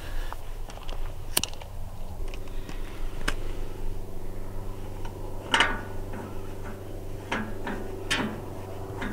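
Several sharp metal clicks and knocks as a holder carrying smouldering ignition paper is fitted and screwed into the side of a Field Marshall single-cylinder two-stroke diesel's cylinder head, ready for starting. A steady low hum runs under the clicks from about two seconds in.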